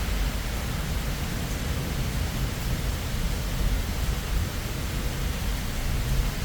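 Steady hiss of heavy rain during a thunderstorm, with a low rumble underneath.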